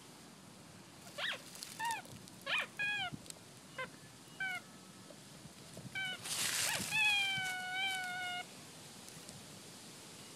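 A dog whining while digging with its nose down: a string of short, high-pitched whimpers that fall in pitch, then a short rush of noise and one longer wavering whine about seven seconds in.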